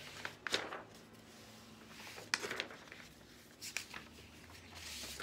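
Sheets of drawing paper being handled and moved by hand: a few crisp paper rustles and slaps, with a softer sliding hiss near the end.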